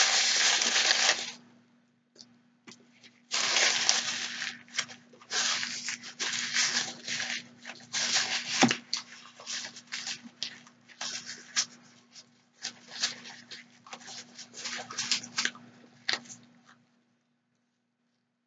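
Paper napkin crinkling and rustling in irregular bursts as it is held and rubbed against the mouth, with a short pause a couple of seconds in, stopping a second or two before the end. A faint steady hum runs underneath.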